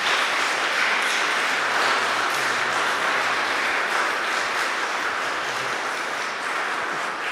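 Congregation applauding: a steady crowd clapping that slowly begins to die down in the last few seconds.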